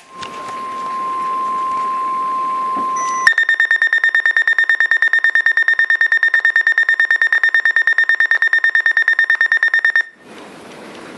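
NOAA Weather Radio's steady 1050 Hz warning alert tone sounds for about three seconds. The Eton ZoneGuard weather radio's own alarm then takes over: a rapid, high pulsing beep at about nine beeps a second, which stops abruptly about ten seconds in. Together they signal that a warning has been received and is about to be read.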